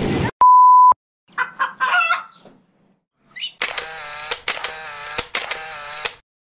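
A loud, steady electronic beep of about half a second, then an edited-in sound effect of chicken calls: a few short clucks, then a louder run of calls in about four bursts.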